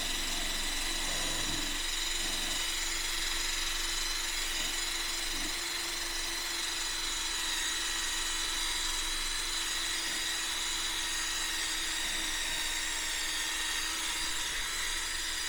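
Electric drill running steadily with a wire brush attachment, scuffing a concrete floor: a constant motor whine over a wiry scraping hiss. The floor is being roughened so the glue for a rubber threshold seal will adhere.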